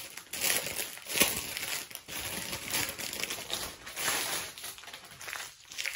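Plastic zip-top bags of diamond-painting drills crinkling and rustling as they are handled, in irregular bursts.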